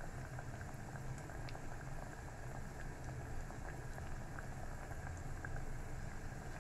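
Breaded cauliflower pieces deep-frying in hot oil in a stainless steel pot: a steady bubbling sizzle with scattered small pops.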